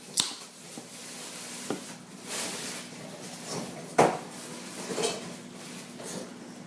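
Kitchenware being handled, with several knocks and clinks and one sharper knock about four seconds in.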